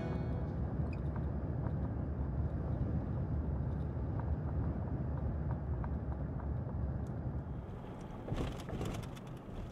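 A car driving, heard from inside the cabin: a steady low road and tyre rumble, with a short patch of crackling about eight seconds in.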